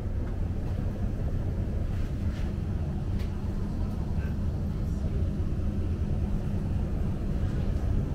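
Steady low hum inside a stationary electric passenger train, its onboard equipment running, with a few faint light ticks.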